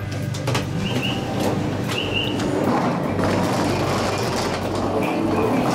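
Local train standing at a station with its equipment humming steadily. Two short high beeps come about a second apart, and the push-button passenger door slides open.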